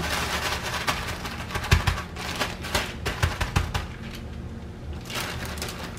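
Plastic zip-top bag crinkling and cornflakes crunching as hands smash the flakes onto chicken cubes inside the bag, with a few dull thumps against the counter.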